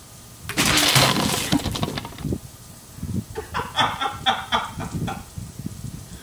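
Homemade PVC air cannon (a burrito blaster) fired by its solenoid valve: a sudden blast of compressed air and ice water, hissing and splashing for about a second and a half. A couple of seconds later a man laughs and whoops.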